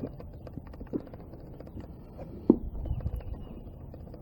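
Scattered light knocks and taps of hands handling the unboxed anvil and its packaging, with one sharper knock about two and a half seconds in followed by a low thud.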